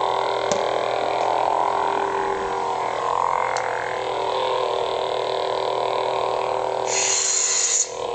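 Lightsaber sound boards playing a steady electronic blade hum through the hilts' small speakers, with two faint clicks and a short hissing burst about seven seconds in.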